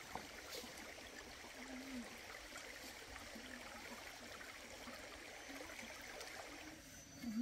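Steady rush of a flowing stream.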